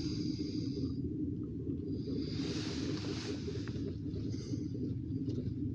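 Freight train of tank cars rolling slowly past, a steady low rumble heard from inside a car, with a hiss lasting about a second near the middle.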